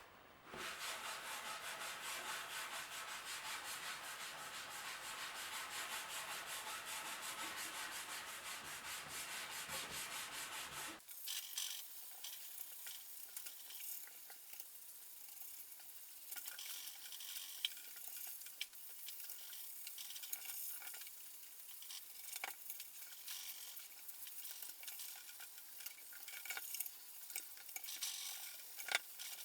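Hand rubbing on the wooden cash-drawer surface during shellac finishing: quick, even back-and-forth strokes that stop abruptly about eleven seconds in. After that comes a fainter, crackly scraping with scattered clicks.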